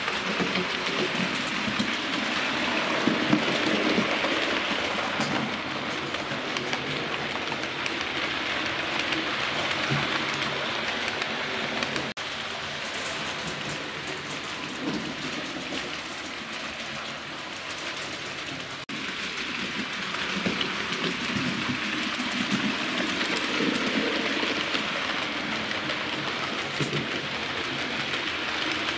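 Model railway trains running on the layout track: a steady hissing rattle of wheels rolling on the rails.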